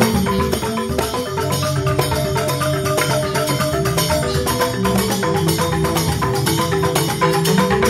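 Balinese joged bumbung gamelan of bamboo xylophones (grantang) playing an instrumental tabuh: fast, dense interlocking mallet notes over a steady beat.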